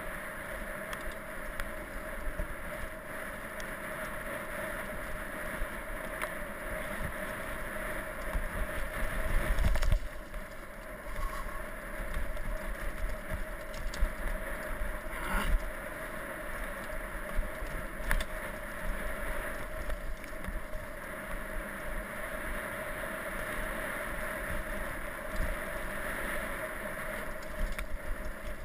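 Mountain bike rolling fast down a dirt trail strewn with leaves: steady wind rush on an action camera's microphone mixed with tyre and drivetrain rattle, a few sharp knocks from bumps, and a louder buffeting rumble about nine to ten seconds in.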